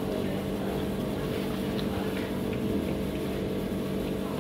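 A steady mechanical hum with several constant tones, with a few faint small clicks over it.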